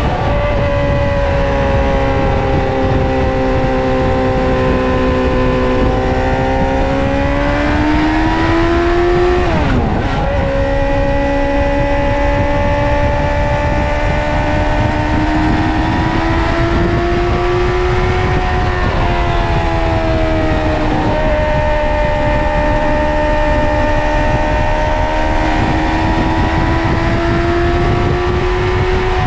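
Suzuki GSX-R 600 SRAD's inline-four engine running at high revs while riding. Its pitch climbs slowly and then eases, with a brief sharp dip in revs about ten seconds in and two smaller dips about two-thirds of the way through. A steady rushing noise lies underneath.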